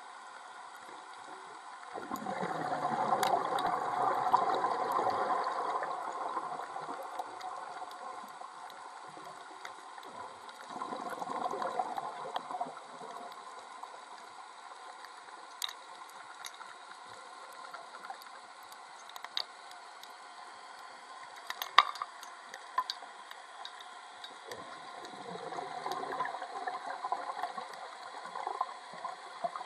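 Underwater sound of divers on a reef: three swells of bubbling, each a few seconds long, against a steady background crackle with scattered sharp clicks.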